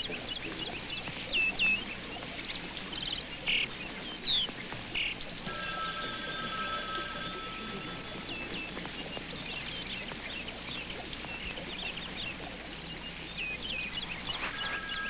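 Birds chirping and twittering in quick, repeated short calls. A held electronic tone of two close pitches comes in for a couple of seconds about five seconds in, and again near the end.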